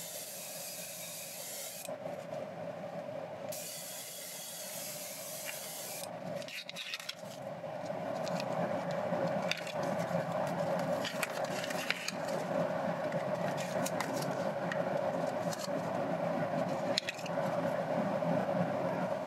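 Double-action airbrush (Iwata HP-BCS Eclipse) spraying thinned paint: a high hiss in two bursts within the first six seconds, starting and stopping sharply as the trigger is pulled back and let go. After that, rustling handling noise with scattered small clicks.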